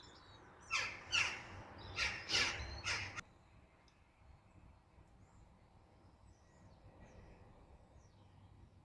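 A crow cawing five harsh, falling calls in quick succession, then stopping; faint small-bird chirps follow.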